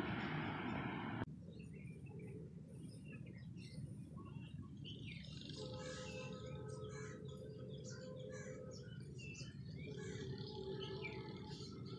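Rushing noise of a passing train that cuts off abruptly about a second in. After the cut, birds chirp over faint outdoor ambience, and a faint steady drone comes in from about halfway.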